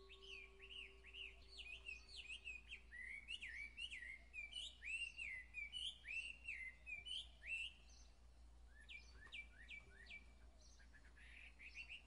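Birds chirping in a quick, busy string of short notes, ending in a brief trill. A chime's ringing tone fades away over the first few seconds.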